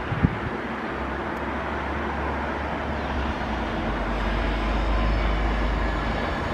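Distant jet engines of an Embraer 170 airliner at takeoff power: a steady rushing rumble that grows louder in the second half. A single short knock comes right at the start.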